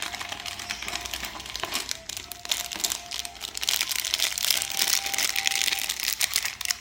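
Plastic packaging of a knockoff Lego minifigure set crinkling as it is handled and opened, growing busier about halfway through.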